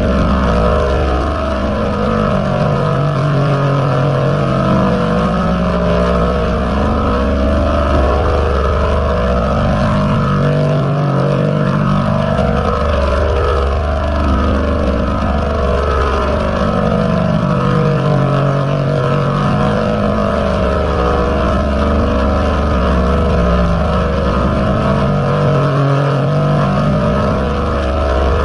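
Heavily distorted, pitch-shifted and layered audio of a 'G Major' meme edit: a loud, dense buzz with a pattern that repeats about every seven to eight seconds.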